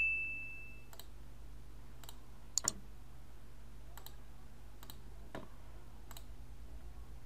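Computer mouse clicks, single clicks about once a second with a louder double click about two and a half seconds in. A short high chime sounds at the very start and fades out over about a second.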